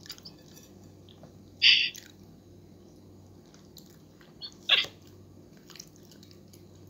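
Two short, wet slurping mouth sounds of someone eating juicy ripe mango, one near the start and one in the middle, over a faint steady low hum.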